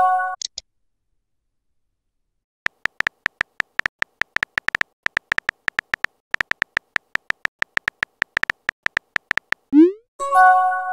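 Smartphone messenger sound effects: a notification chime fades out, and after a short pause comes a long run of quick high clicks, the keyboard-typing sound of a chat. Near the end a short rising swoop leads into another chime, the sound of a message being sent or received.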